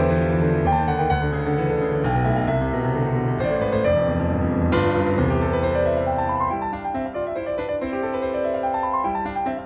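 Background piano music: a gentle piano piece with sustained chords, and two rising runs of notes in the second half.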